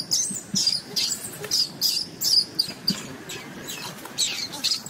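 Baby macaque giving a rapid series of short, high-pitched squealing cries, several a second: distress calls while an adult macaque holds it down on the ground.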